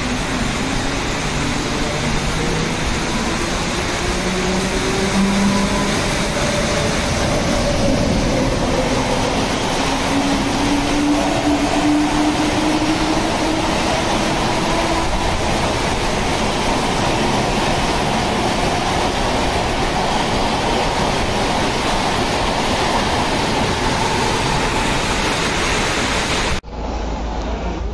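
An express train running through a station in heavy rain: the hiss of the downpour and the rumble of the passing coaches blend into one dense, steady rush. A faint droning whine glides slowly upward in pitch during the first half. About a second before the end the sound cuts abruptly to something quieter.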